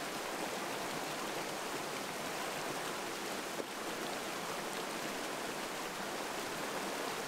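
Waterfall: water rushing in a steady, even noise.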